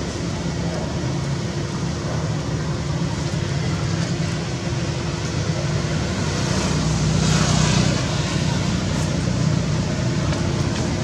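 Steady low hum and rumble of background noise, with a brief hiss about seven seconds in.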